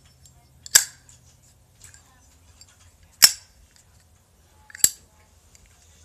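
Brand-new Zippo lighter's hinged metal lid snapping open and shut: three sharp metallic clicks, about a second in, at about three seconds and just before five seconds.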